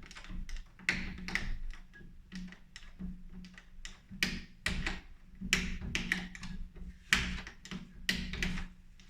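Interior door lever handle being pressed and released over and over, its mechanism squeaking and the latch clicking with each stroke: the handles have worn and need lubricating.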